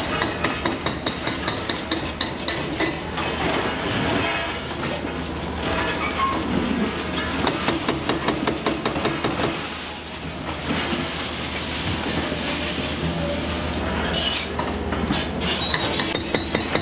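Liebherr R954C demolition excavator's diesel engine running under load while its hydraulic crusher jaws chew reinforced concrete and rebar, giving a dense, uneven clatter of cracks, knocks and clanks over a steady engine hum.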